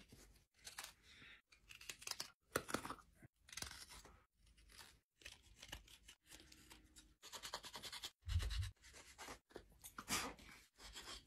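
Hook knife and carving knife shaving a wooden spoon: a run of short, faint scraping cuts through the wood, one after another, with a soft low bump about eight seconds in.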